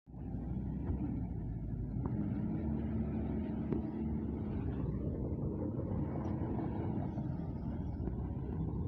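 Kobelco hydraulic crawler excavator's diesel engine running steadily as the machine travels along on its tracks.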